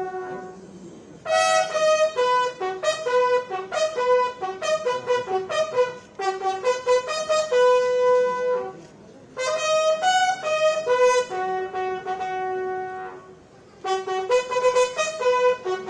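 A solo trumpet playing a melody in phrases, with short pauses between them.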